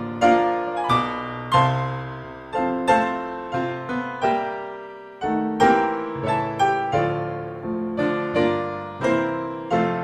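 Slow solo piano music: single notes and chords struck and left to ring away, with a short lull about halfway through.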